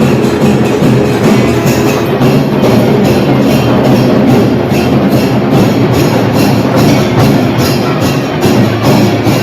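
Loud music with held, sustained tones and regular drum beats.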